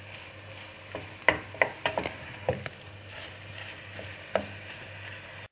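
A spoon stirring and breaking up minced meat browning in a stainless steel pot, with a quick run of sharp knocks and scrapes against the pot between about one and two and a half seconds in, and one more knock near the end. The meat is frying dry before the tomato passata goes in.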